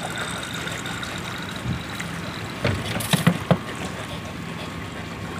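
Steady low engine drone with river water and wind noise, and a few sharp clicks and knocks about three seconds in as a small fish is unhooked in the boat.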